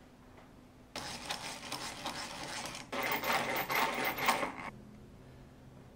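Hand-cranked eggbeater drill boring a pilot hole into wood: a rapid whirring and chattering of its gears and cutting bit. It comes in two spells of about two seconds each, and the second is louder.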